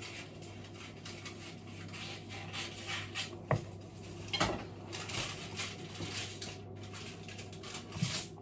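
Wooden spoon scraping and knocking against a mixing bowl of cake batter, with two sharper knocks a few seconds in.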